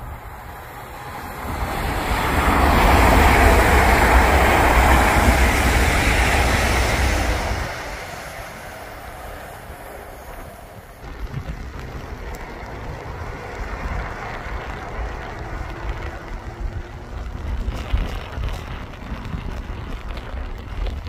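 Electric passenger train passing at speed: a rush of wheel and air noise that builds, holds loud for about four seconds and fades. Then a steady rumble with gusts of wind on the microphone.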